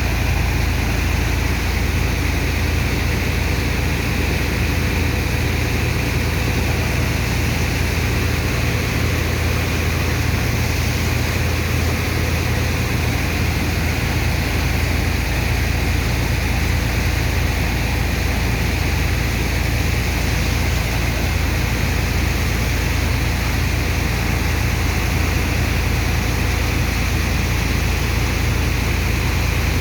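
Sand dredger's heavy engine and water pump running steadily: a deep, even drone under a constant rushing noise.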